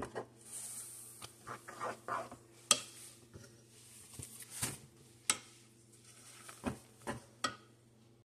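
A white spoon stirring thick instant mashed potatoes in a nonstick pan: soft scraping of the mash, with about half a dozen sharp taps of the spoon against the pan from about two and a half seconds in.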